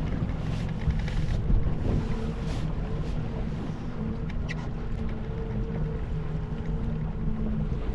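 Fishing boat's engine running steadily at slow trolling speed, a low even hum under wind and water noise.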